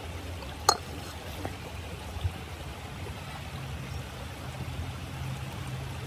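Steady rushing of a shallow stream running over rocks. A single sharp click comes about a second in, and a fainter knock a little after two seconds.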